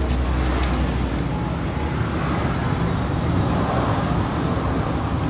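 Steady, even outdoor background noise with a deep low rumble, no distinct events.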